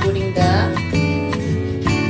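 Background music led by a guitar, with notes struck at a steady pace.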